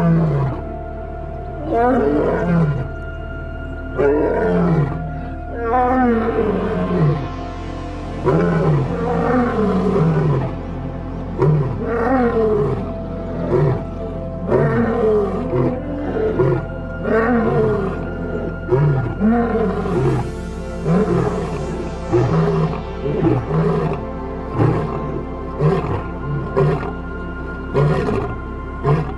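Male lion roaring: a long series of deep grunting roars, about one a second, each call dropping in pitch. A steady background music bed runs underneath.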